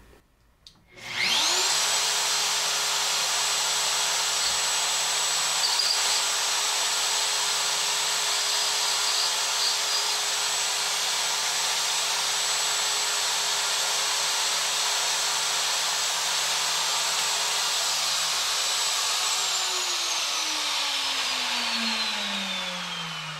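Plunge router with a carbide end mill switched on, spinning up quickly to a steady high whine and running evenly, then switched off near the end and winding down with falling pitch.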